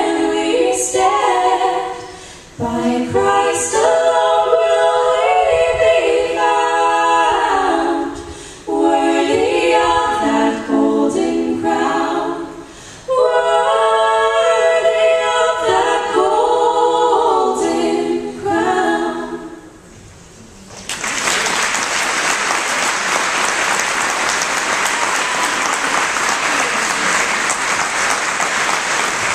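Three female voices singing a hymn in close harmony through microphones, with no accompaniment; the song ends about twenty seconds in. After a short pause an audience applauds steadily.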